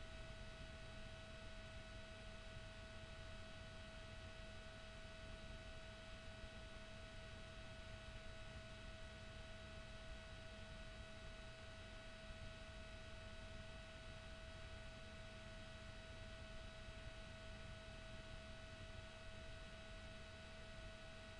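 Near silence: a faint steady electronic tone over hiss, unchanging throughout, the kind of whine that electrical interference leaves in a recording.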